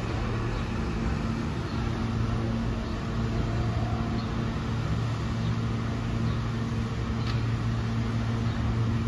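R160 subway train with Alstom propulsion rolling slowly into a station and coming to a stop, with a steady low electrical hum over the rolling noise.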